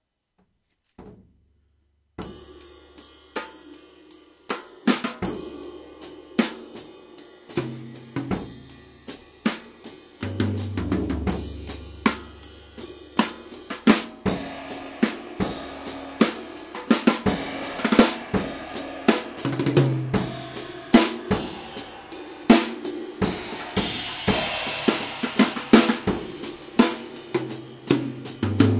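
A drum kit played with nylon brushes: a steady groove on snare, toms, bass drum and cymbals cut through with holes. It starts about two seconds in and gets louder and busier from about ten seconds.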